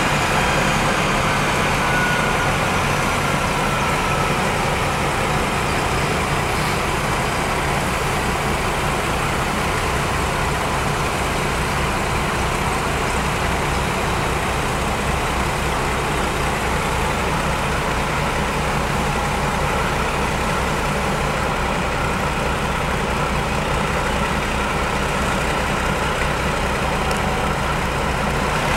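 Maybach V12 diesel engines of a V200 diesel-hydraulic locomotive running steadily at idle while standing. A high whine falls in pitch over the first few seconds as the engine settles back.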